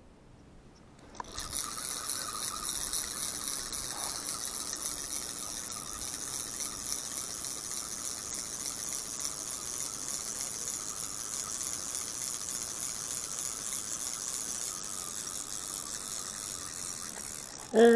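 Spinning fishing reel cranked steadily, winding in line with a small fish on. It starts abruptly about a second in and runs evenly until just before the end.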